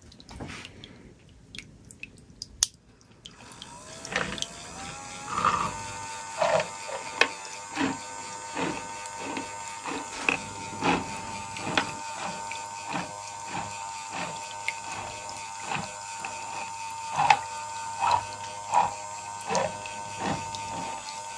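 Small electric gear motor of a barrel electroplating machine switched on about three and a half seconds in, with a whine that rises in pitch as it spins up. It then runs steadily, with a click about every two-thirds of a second as the gears turn the perforated plating barrel.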